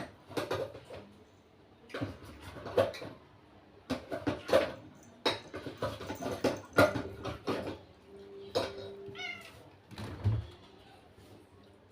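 Domestic cat meowing repeatedly, several short calls in a row, with clicks and knocks of eating in between and a dull thump near the end.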